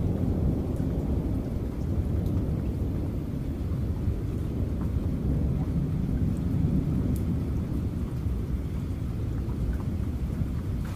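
Steady, low, muffled rumble of rain and distant thunder, with a few faint ticks.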